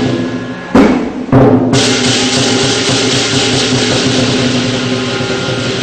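Lion dance percussion of drum, cymbals and gong playing loudly. Two hard crashes in the first second and a half, then a fast continuous drum roll under ringing cymbals.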